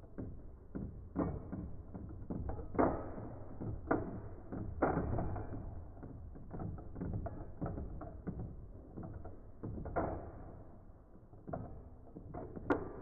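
Two Beyblade spinning tops rubbing and clashing against each other in a plastic stadium, making irregular clicks and knocks several times a second over a steady low rumble. There is a sharper click near the end.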